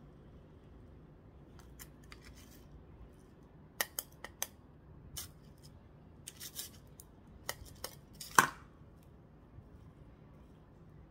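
Scattered short, crisp scratches and clicks of fingers pressing and working gritty succulent potting mix around the plant's stems, with one louder scrape about three-quarters of the way in.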